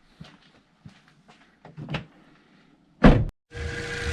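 Small knocks and clicks, a loud thump about three seconds in, then an electric bilge pump starts up half a second later and runs steadily with a hum, pumping rainwater out of the boat with a rushing, gushing sound.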